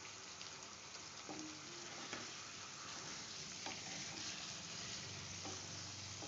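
Pork, potato and mustard-green curry sizzling in a non-stick kadai as it is stirred with a spatula, its cooking water just boiled off: a steady frying hiss.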